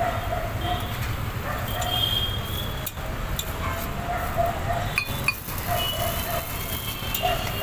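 Open-air street-stall ambience: a steady low rumble under short, faint distant calls or voices, with a few sharp metal clinks of kitchen utensils around the griddle.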